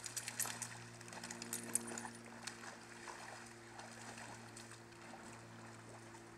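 Two dogs splashing through a shallow creek pool, with a quick run of sharp splashes in the first two seconds or so and lighter sloshing after, over a steady low hum.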